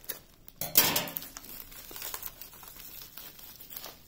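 White plastic mailer bag crinkling as it is handled and opened, with a loud rustle about a second in and softer crinkling after.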